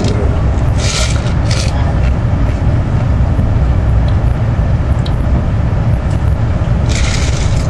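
AVE high-speed train running at speed, heard inside the passenger car: a steady deep rumble of wheels on rail with rushing air noise over it, and a few brief hissing surges, about a second in and again near the end.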